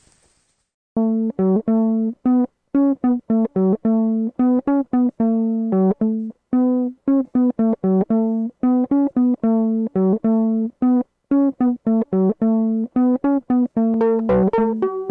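Background music: a melody of short plucked-string notes with clear gaps between them, starting about a second in after near silence. More instruments join near the end.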